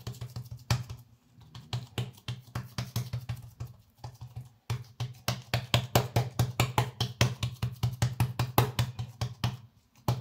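Hands patting oiled msemen dough flat on a wooden countertop: a fast run of soft taps, several a second, that pauses briefly about a second in and again about halfway through.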